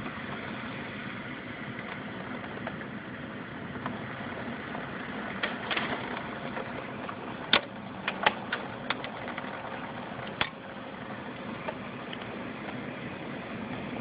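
Strong storm wind with heavy rain, a steady rushing noise, with a scatter of sharp knocks and clicks between about five and ten seconds in.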